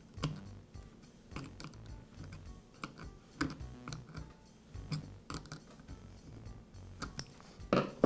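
Irregular light metal clicks and taps from a small hand tool tightening the nut that secures the new ignition switch to an Echo chainsaw's plastic housing.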